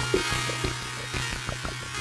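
Background music with a steady beat, getting gradually quieter.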